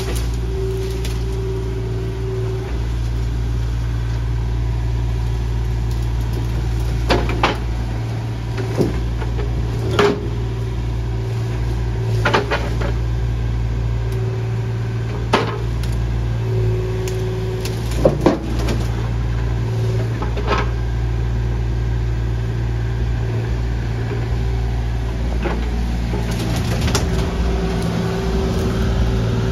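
Mini excavator's engine running steadily, with scattered sharp cracks and knocks, about a dozen, mostly in the middle stretch.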